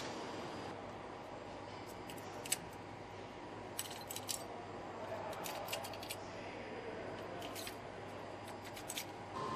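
Pliers snipping and breaking off the thin lattice supports of a 3D-printed metal part: a scattering of short, sharp clicks and snaps over a steady background hum.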